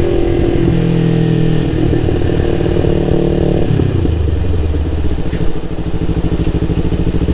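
Motorcycle engine running steadily while riding along a street. The engine note drops in pitch about three and a half seconds in.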